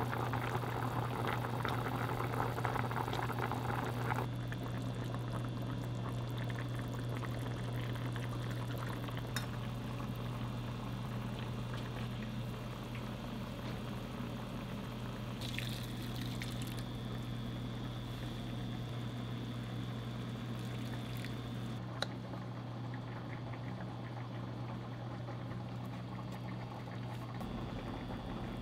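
Food simmering and bubbling on the stove over a steady low hum, with a denser crackling stretch in the first few seconds. A single sharp click comes about two-thirds of the way through.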